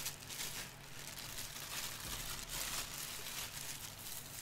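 Plastic packaging wrap crinkling irregularly as it is pulled off a statue part by hand.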